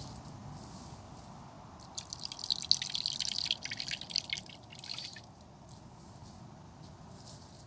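Coconut milk squeezed by hand from grated coconut, dripping and trickling into a small earthen bowl of milk. A quick run of splashy drips starts about two seconds in and dies away after about three seconds.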